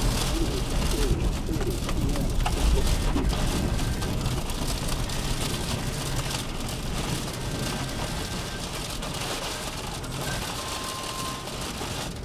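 Steady rush of wind-driven rain against a moving car, heard from inside the cabin, with low road and wind rumble that eases slightly toward the end. A faint, steady, high tone comes in near the end.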